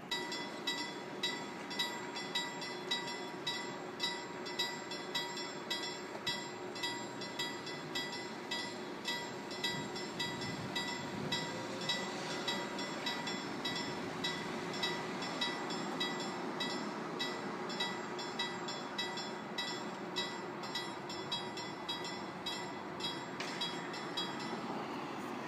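Level crossing warning bell ringing steadily at a little under two strokes a second. It starts suddenly, warning of an approaching train as the barriers come down.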